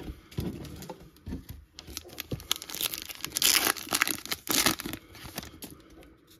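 A foil Topps Chrome trading-card pack being torn open and crinkled by hand, a dense crackle of thin foil with sharp ticks, loudest a little past the middle and fading near the end.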